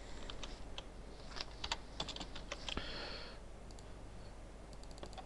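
Computer keyboard typing and mouse-button clicks, faint: scattered taps with a cluster in the middle and a few quick light ticks near the end.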